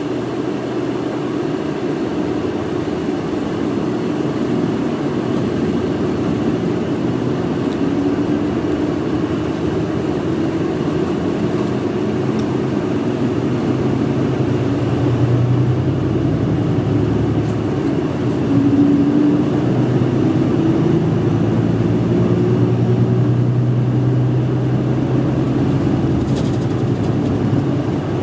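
Route bus driving, heard from inside the cabin: a steady engine hum with road noise, the engine note shifting up and down with acceleration, slightly louder in the second half.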